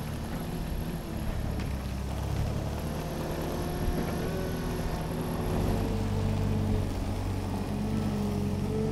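Manitou MSI 30T forklift's diesel engine running steadily while it handles a heavy stone slab, its note rising a little about halfway through.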